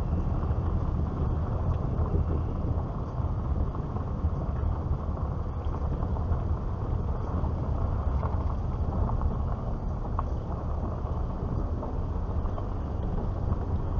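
Car driving slowly, heard from inside the cabin: a steady low rumble of engine and tyres on the road.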